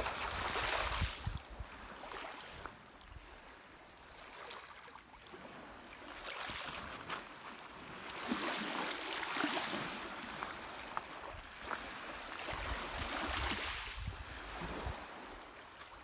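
Small waves lapping and washing in over a pebble shore, swelling and fading every few seconds, with a few faint clicks.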